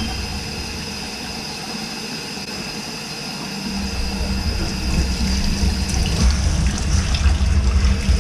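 Kitchen faucet running a steady solid stream into a stainless steel sink, its aerator removed.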